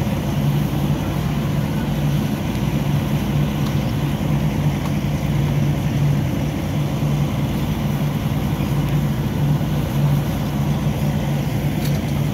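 Vehicle engine idling steadily with a low, even hum.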